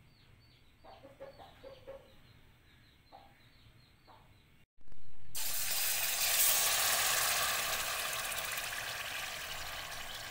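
Yogurt-marinated chicken tipped into hot oil in a steel pot, sizzling loudly from about five seconds in and slowly dying down. Before that there are only a few faint short calls.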